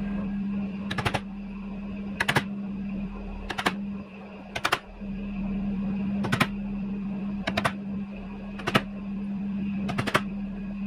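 Hammer striking a wood chisel into a timber roofing batten: short groups of two to four quick taps, about one group every second and a quarter, eight groups in all. A steady low hum runs underneath.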